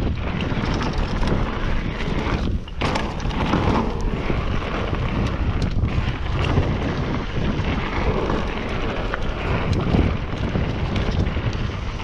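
Wind buffeting the camera microphone over the rumble and clatter of a mountain bike rolling fast down a rocky dirt trail, with a brief lull a little before three seconds in.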